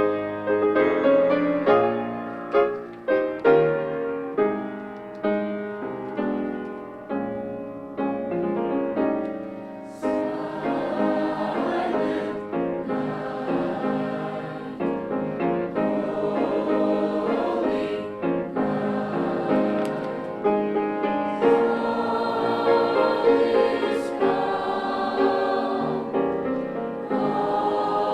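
Piano playing an introduction of single struck, decaying notes, then a high school choir comes in singing with the piano about ten seconds in.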